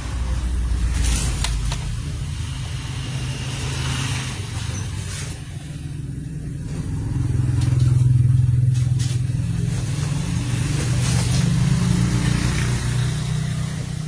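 Faulty microphone heard through an amplifier as it is moved: a loud low hum with scratchy crackling and several sharp clicks, swelling and fading. Typical of a loose connection or broken wire at the microphone's base.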